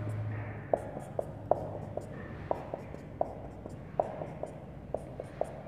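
Marker pen writing on a whiteboard: a series of short, irregular ticks as letters and bond lines are drawn.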